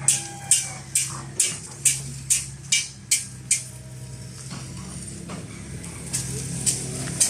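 Sharp metallic strikes, metal hitting metal at about two a second, stopping after about three and a half seconds and coming back three times near the end, over a steady low machine hum.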